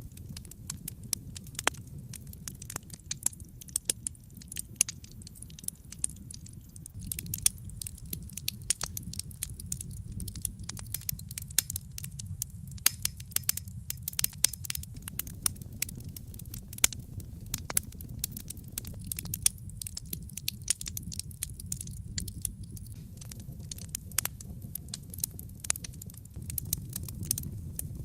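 Wood fire burning in a fireplace, with a steady low rumble of the flames and many sharp, irregular crackles and pops of burning wood.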